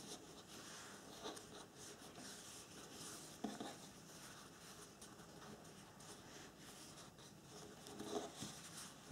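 Faint rustling and rubbing of a paper napkin as it is folded and creased by hand against a tabletop, over a steady hiss. A few soft bumps come about a second in, midway and near the end.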